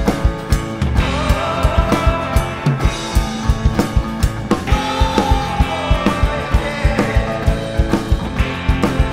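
Background music: a song with a steady drum-kit beat and a gliding melody line over it.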